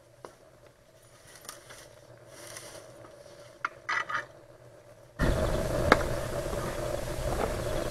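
Brush scraping and rustling as it is shoved with a long pole into the mouth of a stone lime kiln to light it, with a few sharp clicks and scrapes. About five seconds in, a loud steady rushing noise suddenly takes over.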